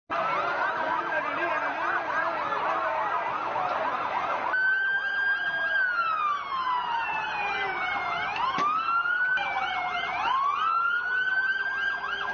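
Several police vehicle sirens sound at once. Quick yelping sweeps are overlaid in the first few seconds. After that, one slow wail falls in pitch, swoops back up and falls again over faster yelps. The sound jumps abruptly twice, about four and a half and nine seconds in.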